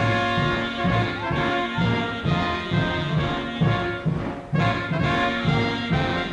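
Brass-led band music with a steady beat and a bouncing bass line.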